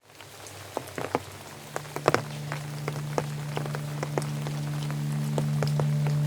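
Heavy rain fading in, with a steady hiss and many individual drops tapping sharply on a window. A low steady hum or drone comes in about two seconds in and grows under the rain.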